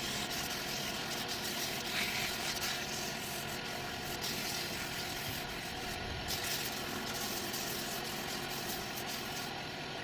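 Wood lathe running steadily: an even motor hum under a broad hiss.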